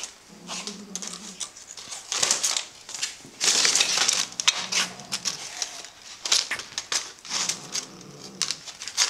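A cat crunching dry snacks, in repeated crackling bursts of crunching and crinkling.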